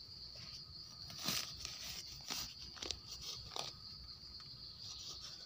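A knife digging into dry leaf litter and soil around a mushroom gives a few short crunching rustles, the loudest about a second in. A steady high drone of forest insects runs underneath.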